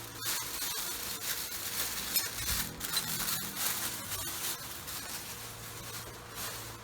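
Plastic packaging crinkling and rustling in irregular bursts as the circular saw's accessories are unwrapped by hand.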